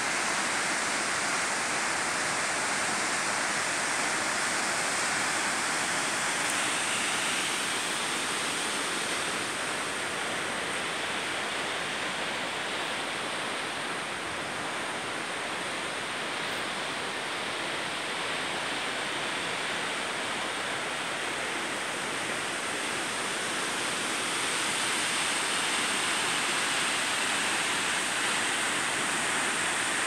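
Steady rush of the Texolo waterfall, a tall plunge of falling water into a gorge. It eases slightly for a while in the middle, then comes back up.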